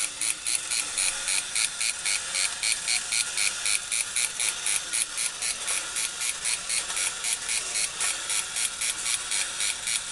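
Battery-operated tin toy dog weightlifter's small motor and gear mechanism running, clattering in a fast, even rhythm of about four clicks a second as it works the barbell.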